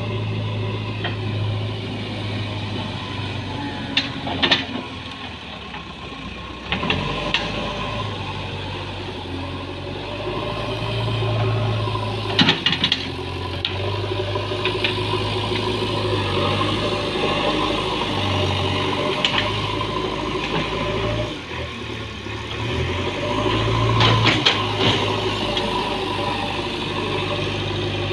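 JCB backhoe loader's diesel engine running steadily, with a few sharp metallic clanks from the machine's working parts, the loudest clusters about four, twelve and twenty-four seconds in.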